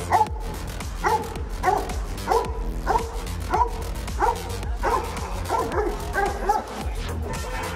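German Shepherd barking repeatedly at a decoy during protection-training agitation, about one and a half barks a second.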